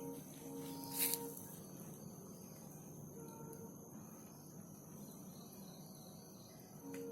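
Insects trilling on one steady high note, with short pitched calls now and then and a brief hissing burst about a second in.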